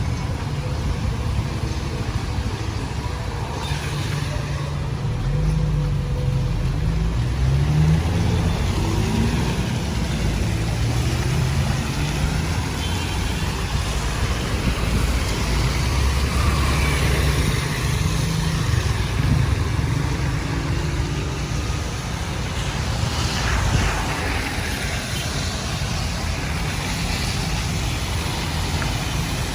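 Road traffic on a wet street: vehicle engines and tyres running steadily over a continuous low rumble.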